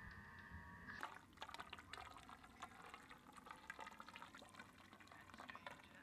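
Faint water being poured through a funnel into a hose, filling the rocket-stove heater's copper coil, starting about a second in after a few steady tones stop.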